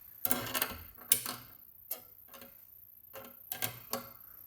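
Metal lock-picking tools clicking and scraping in the keyway of an Evva 3KS lock: a string of short, irregular clicks as the pick and tensioner are worked in.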